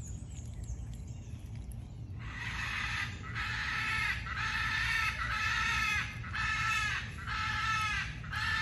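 A run of about six drawn-out animal calls, each about a second long with short gaps between, starting about two seconds in. They are the loudest sound here, over a low steady rumble.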